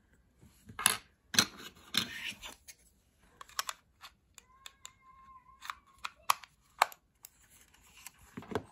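Sharp plastic clicks and knocks from handling a Logitech M317 wireless mouse as its battery cover is pressed back into place and the mouse is set on a table, a handful of separate clicks spread over several seconds.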